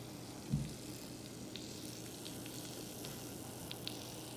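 Honey butter lemon pepper sauce sizzling in the pan around fried shrimp: a steady hiss with scattered small pops, and one short low bump about half a second in.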